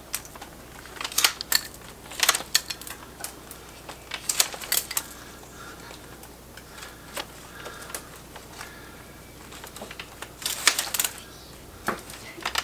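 Loppers snipping through willow rods, giving a series of sharp snaps a second or a few seconds apart, with a quieter stretch in the middle.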